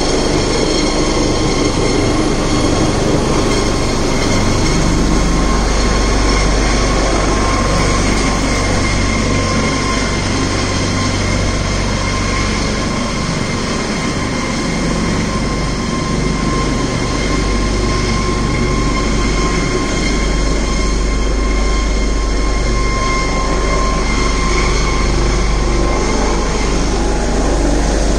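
Helicopter hovering close: a loud, steady turbine whine over a low rotor throb.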